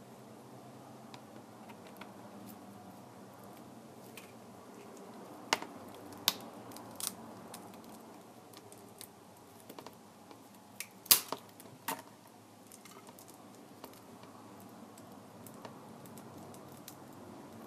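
Scattered sharp clicks and taps of small tools and parts being handled during a tablet screen repair. The loudest is a quick cluster of clicks about eleven seconds in, over a faint steady hum.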